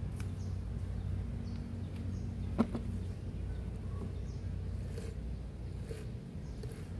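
Handling noises from work on a stopped chainsaw: a few faint clicks and one sharp metallic clink about two and a half seconds in, over a steady low background hum.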